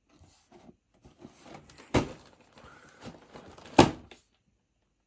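Large cardboard model-kit box being handled and turned over by hand: soft scraping and rustling, with two sharp knocks against the box, one about two seconds in and a louder one near four seconds in.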